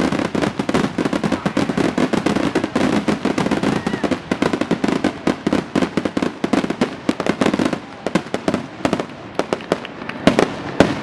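Aerial fireworks display: a dense barrage of shell bursts and crackling reports that thins out about eight seconds in, with a few louder bangs near the end.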